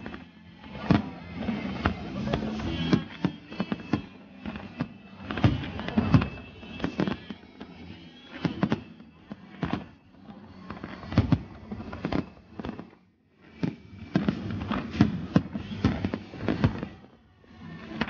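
Fireworks display: aerial shells and comets banging and crackling in quick, irregular succession, with a brief lull about two-thirds of the way through before the bangs resume.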